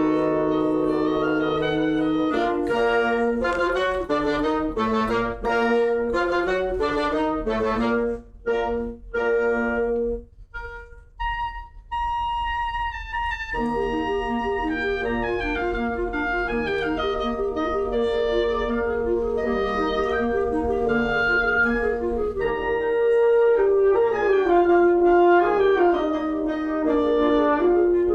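Wind band of clarinets and brass playing a classical piece. Short detached chords thin out to a single held high note about ten seconds in, then the full band comes back in with sustained chords and moving lines, getting louder near the end.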